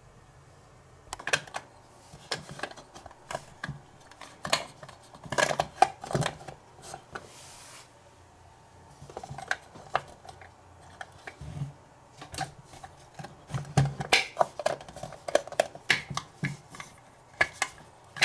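Small toy kitchen pieces and dishes being handled: uneven runs of light clicks, taps and clatter, with a short hiss about seven seconds in.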